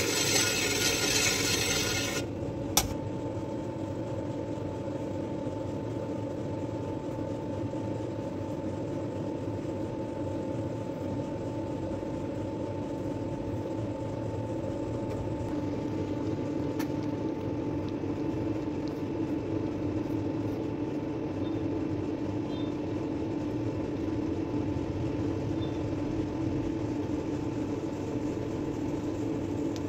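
Steady mechanical hum with a thin constant whine. In the first two seconds a louder scraping noise plays over it, then stops abruptly with a single click.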